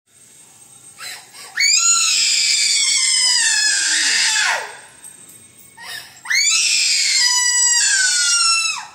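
Young boy screaming and crying in two long, high-pitched wails of about three seconds each, both dropping in pitch as they trail off, with a couple of short sobs before the first.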